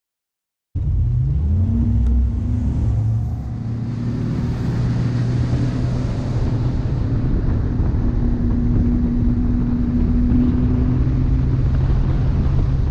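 Bass boat's outboard motor running at speed, cutting in suddenly about a second in. Its pitch rises briefly, then holds steady under a constant rush of wind and water.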